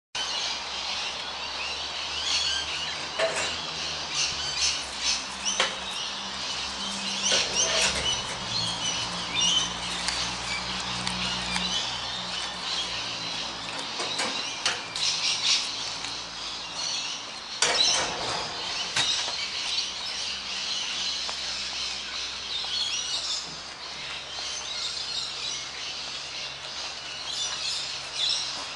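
Small birds chirping and calling continuously in the surrounding trees, with a few brief sharp sounds scattered through.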